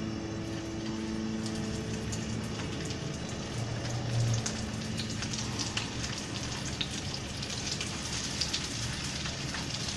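Minced-beef kababs sizzling and spitting in shallow hot oil in a frying pan as they are laid in one by one, the crackle growing busier as more go in. Background music fades out in the first couple of seconds.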